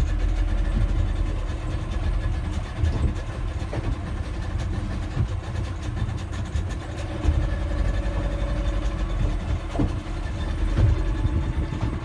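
A glass-bottom boat's engine running steadily with a low rumble and a faint steady hum.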